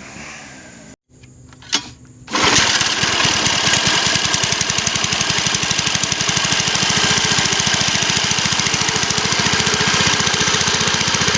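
Small engine from a homemade grass-cutting machine running loud and steady with a fast, even chugging that starts abruptly about two seconds in, after a sharp click.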